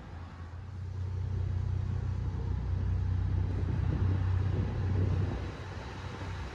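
Diesel train engine rumbling low and steady, growing louder about a second in.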